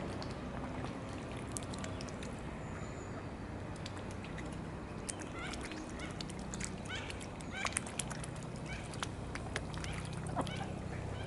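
Mute swans and mallards dabbling at the water's edge: scattered wet clicks and small splashes with a few short duck calls in the second half. Under them runs a steady low drone from a helicopter overhead, growing stronger near the end.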